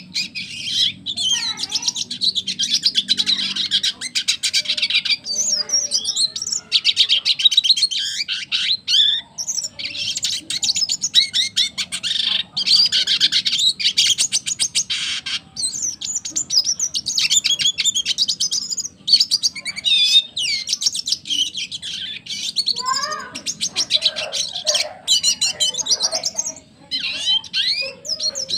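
Red siskin singing a long, fast twittering song of rapid trills and chirps, almost without a break, with a few lower, slurred notes around the last few seconds.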